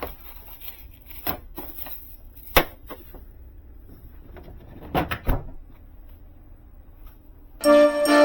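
A few separate knocks and clicks of household items being handled, a sharp one about two and a half seconds in and a close pair about five seconds in. Background music comes in near the end.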